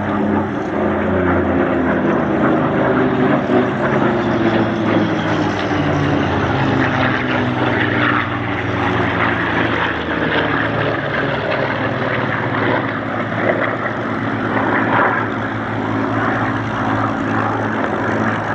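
Piston-engined propeller warbird flying a display pass. Its engine drone falls in pitch over the first several seconds as it passes, then runs on as a steady, rough drone.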